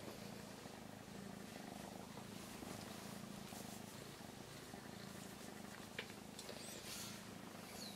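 Calico cat purring faintly and steadily, a low continuous rumble. A single sharp tick about six seconds in.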